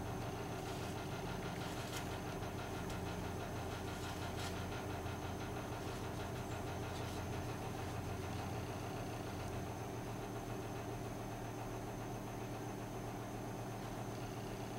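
Steady machine hum made of several held tones, with a few faint clicks.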